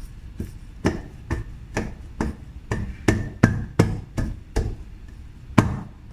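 About a dozen sharp knocks, roughly two a second, with a last loud one after a pause of about a second.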